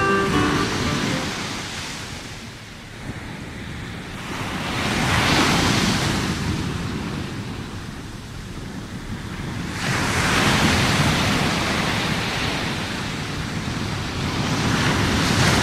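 Sea waves washing onto a beach, the surf rising and falling away three times, about five seconds apart.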